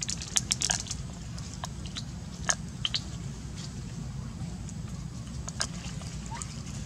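A macaque chewing food close to the microphone: a quick run of crunchy clicks in the first second, then a few single clicks spread through the rest, over a steady low rumble.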